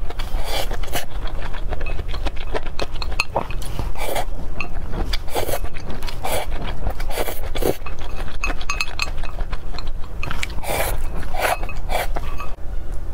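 Close-miked eating sounds: wooden chopsticks clicking and scraping against a glass bowl while noodles are slurped and chewed, in irregular short bursts.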